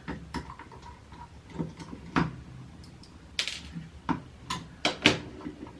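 Irregular clicks and taps of a VHF ham radio transceiver's casing being handled, about eight or nine sharp ones, the loudest about two seconds in and near the end.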